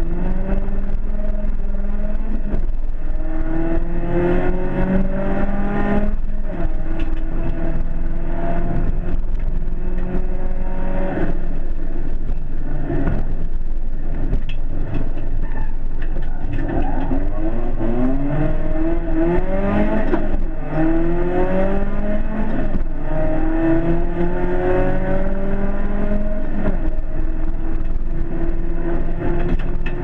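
BMW rally car's engine heard from inside the cabin, revving hard through the gears: the pitch climbs again and again and drops back at each gearshift. In the middle the revs fall and climb in quick turns as the car slows and accelerates through corners, over steady tyre and road noise.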